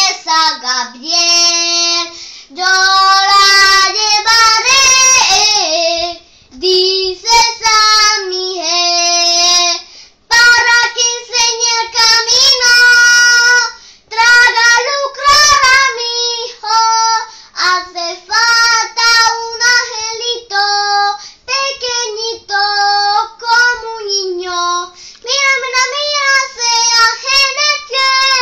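A young girl singing a Christmas song in Spanish, solo and unaccompanied, in held notes with short breaths between phrases.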